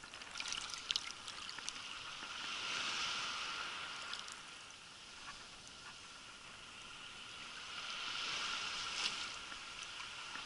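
Shallow sea water sloshing and bubbling around a camera dipped under the surface, heard as a muffled rushing hiss that swells twice. A few sharp clicks fall in the first two seconds.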